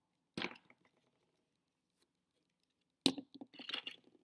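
Small plastic and metal model-car parts being handled: a single click about half a second in, then a quick run of clicks and light rattles near the end as a small part is put into a small box of parts.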